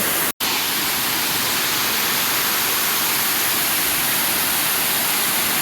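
Waterfall: steady, even rushing of falling water, which drops out for an instant near the start.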